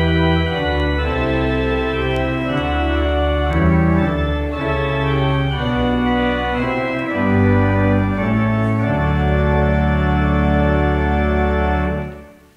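Church organ playing slow, sustained chords, ending on a final held chord that stops shortly before the end.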